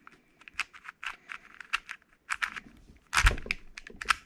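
MoFang JiaoShi RS4 M magnetic 4x4 speed cube being turned, an irregular run of sharp plastic clacks with one loudest about three seconds in. The cube turns loudly, which the owner puts down to little or no lube.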